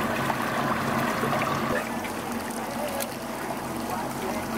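A boat's motor running steadily, a low even hum, with water rushing and splashing along the hull.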